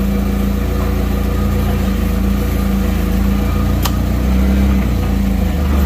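Forklift engine running steadily while lifting a load, a little louder about four seconds in, with one sharp metallic click just before that.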